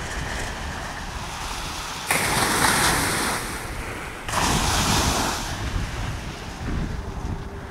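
Small sea waves washing up a sandy beach, with two louder rushes of surf that start suddenly about two and four seconds in and fade over a second or so. Wind rumbles on the microphone throughout.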